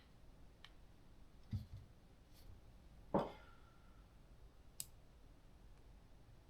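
A few scattered knocks and clicks of small metal parts being handled on a workbench: a dull knock about a second and a half in, a louder clack with a brief ring just after three seconds, and a sharp click near five seconds.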